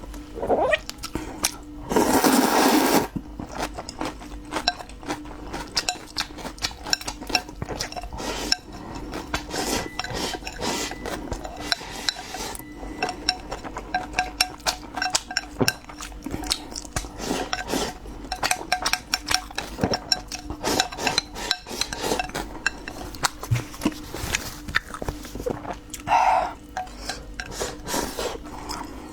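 Eating at the table: utensils clicking and clinking against bowls and dishes many times over, with a louder noisy burst about two seconds in.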